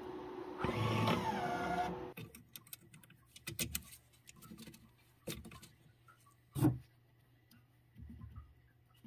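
Optical lens edging machine running with a steady hum, then swelling into a louder whir with a falling whine about a second in and shutting off about two seconds in. Scattered light clicks and knocks follow as gloved hands handle the lens in the edger's chuck beside the grinding wheels.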